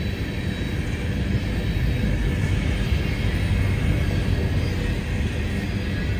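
Freight train of CSX coal hopper cars rolling past on the rails: a steady low rumble of steel wheels on track.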